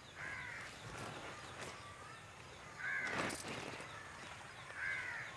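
A crow cawing, three faint caws about two seconds apart, the middle one the loudest.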